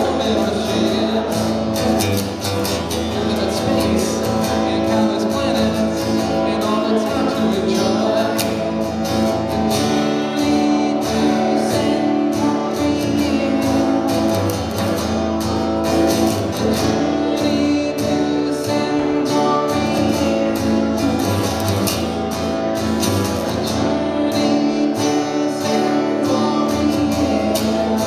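Live song: a guitar strummed steadily while a man sings over it.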